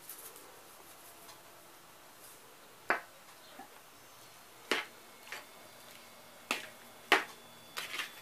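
Metal spoon stirring a bowl of chopped pata and onion and knocking against the plastic bowl: about seven faint, sharp clicks, the first about three seconds in, then roughly one every half second to a second.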